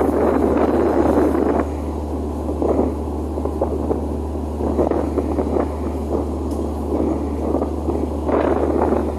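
Wind gusting across the microphone in uneven swells over a steady low drone from a ship's engine.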